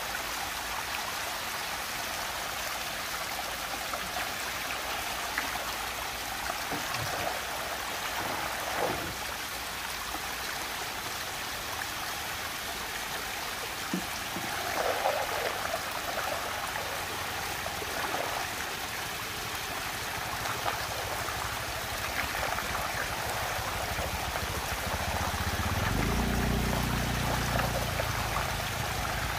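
Water rushing steadily down a whirlpool vortex, with a few brief splashes as small plastic toys drop into the funnel. A low rumble joins the rushing near the end.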